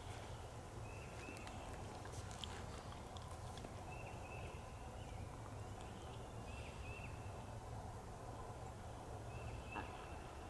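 Wind buffeting the microphone as a faint steady low rumble, with short high chirps, often in pairs, repeating every couple of seconds.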